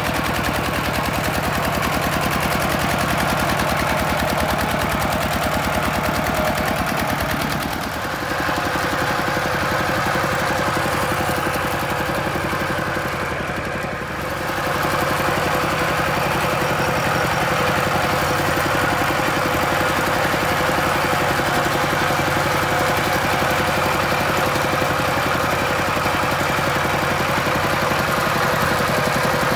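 Kubota two-wheel walking tractor's single-cylinder diesel engine running steadily in a rapid chugging beat while it drives along. The level dips briefly twice, about eight and fourteen seconds in.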